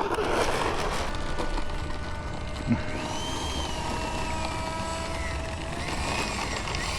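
Whine of an electric ducted-fan model jet in flight, its pitch swelling and falling as it passes, over wind rumbling on the microphone. A brief knock about two to three seconds in.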